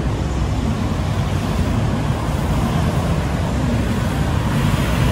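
Steady road traffic noise from cars and motorcycles on a busy multi-lane road.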